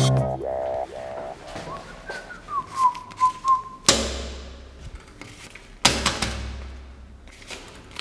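A person whistles a short tune that ends on a held note, cut off by a heavy thud. About two seconds later there is a second heavy thud.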